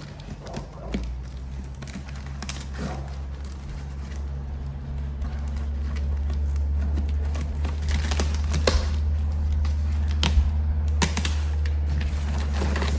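Cardboard box being opened and its packing tape pulled off: scattered crackles and taps, over a steady low rumble that comes in about a second in and grows louder.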